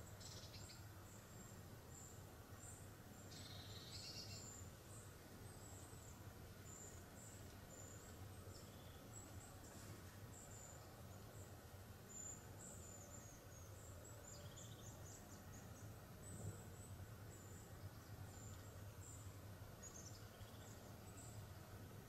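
Faint woodland ambience: small birds giving many short, high, thin chirps at irregular intervals, with a brief fuller phrase about three to four seconds in, over a low steady hum.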